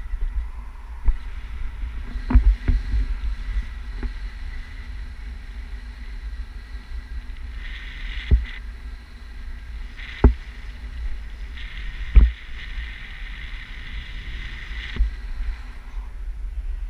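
Airflow buffeting the microphone of a pole-held camera in flight under a tandem paraglider: a steady low rumble with hissy stretches, broken by about eight short sharp thumps.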